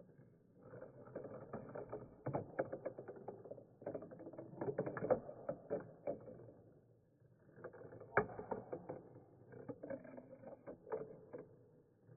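Marbles rolling and clattering down a small marble run track, a rumble of rolling broken by many sharp clicks. It comes in two runs, one starting about a second in and fading around six seconds, the other starting near eight seconds with a loud click and ending about a second before the end.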